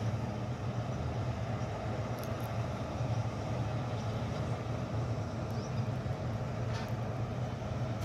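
Vishal 435 combine harvester running steadily while harvesting a standing crop: a continuous low diesel engine drone with the rumble of its machinery.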